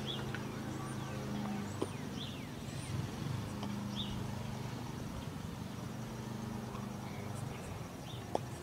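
Outdoor street ambience: a steady low hum throughout, with scattered short bird chirps and a couple of faint clicks.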